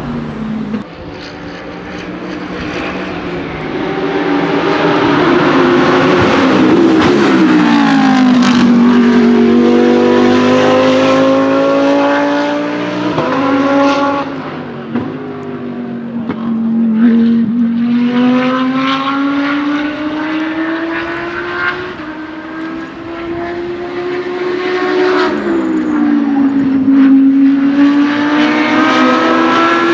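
GT3 race car engines at speed on a circuit, the engine pitch climbing and falling several times as the cars accelerate, shift gear and pass.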